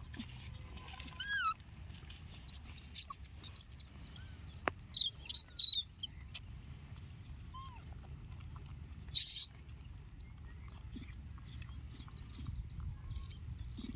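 Scattered short, high chirps and squeaks from an animal, with sharp clicks, and a brief loud hiss about nine seconds in.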